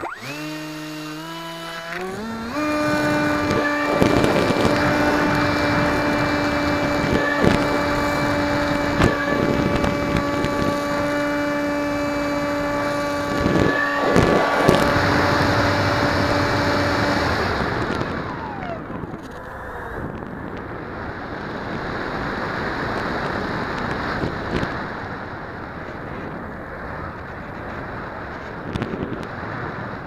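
Brushless electric motor and propeller of a Multiplex EasyStar model plane, heard from its onboard camera, spinning up in steps over the first couple of seconds and then holding a steady high whine. About seventeen seconds in the motor cuts off, and wind rushes over the microphone as the plane glides.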